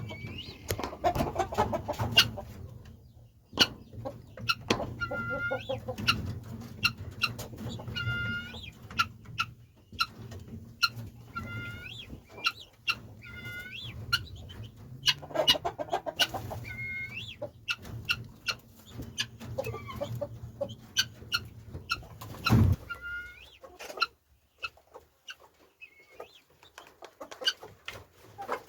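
Chickens clucking, short calls repeated again and again, over many sharp ticks and a low steady rumble that drops away near the end.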